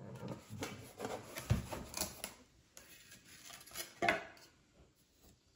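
Unpacking noise as foam packing pieces and cardboard are pulled off a wooden box and set down: scattered light rubbing and knocks, with a dull thump about one and a half seconds in and a sharper knock around four seconds.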